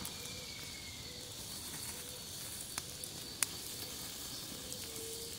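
Fish sizzling as it roasts over a wood campfire: a steady frying hiss with two sharp pops from the fire around the middle.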